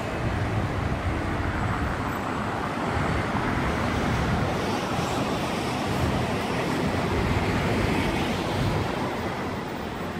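Steady noise of road traffic, an even rumble and hiss.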